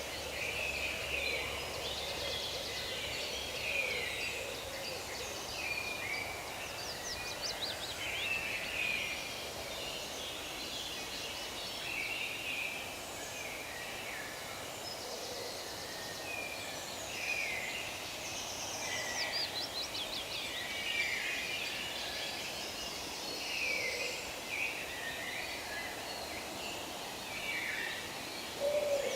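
Forest birdsong: several birds chirping and trilling at once over a steady background hiss, with an occasional lower call.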